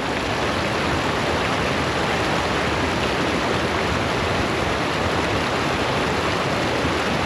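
Steady rush of water pouring over a small waterfall.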